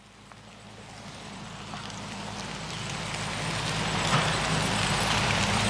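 Noodles sizzling on a large iron griddle: a steady hiss that swells over the first few seconds and then holds.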